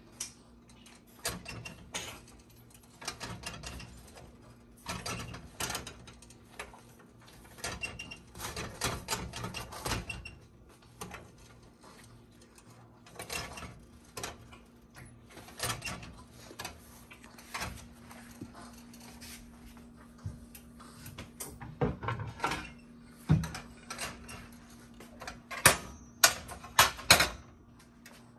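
A cloth pressing and rubbing a flatbread on a flat metal griddle: irregular rustling and scraping strokes over a faint steady low hum. Louder, sharper knocks and rustles come near the end as the cloth is handled close by.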